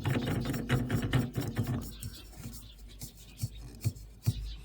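New spin-on fuel filter being screwed onto an excavator's filter head by hand: dense rubbing and scraping for about two seconds, then scattered clicks and light knocks.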